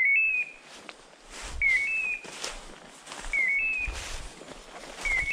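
Dog beeper collar in point mode, giving a short electronic chirp that dips and then steps up in pitch, four times at about two-second intervals: the sign that the pointer is standing still on point. Footsteps rustle through dry leaf litter and brush between the chirps.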